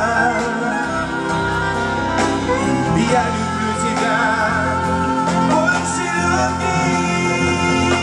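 Live band playing a slow ballad through a passage between the sung lines, with a wavering melody line and some wordless singing over the accompaniment.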